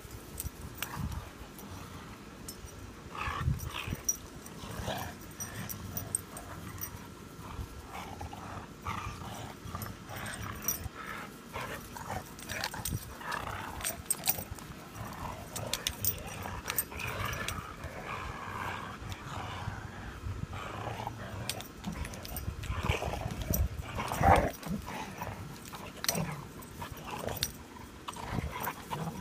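Two Pudelpointers squabbling over a bone: on-and-off dog growls and scuffling, with a louder outburst about three quarters of the way through.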